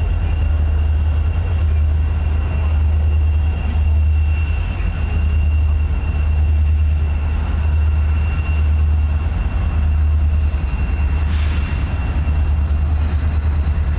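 Steady, loud low rumble with a faint, thin high-pitched whine held above it.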